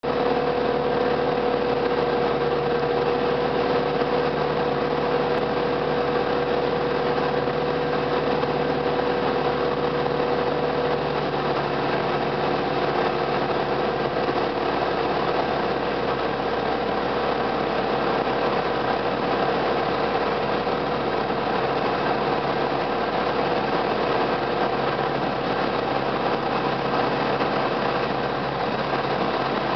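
Light single-engine aircraft's piston engine and propeller droning steadily, heard from inside the cockpit on the landing approach; the tone settles slightly lower about eleven seconds in.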